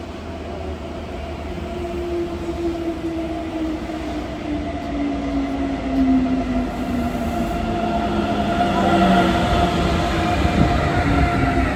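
ICE high-speed train heard from inside the carriage: a steady running rumble with an electric whine that falls slowly in pitch as the train slows, typical of an approach to a station.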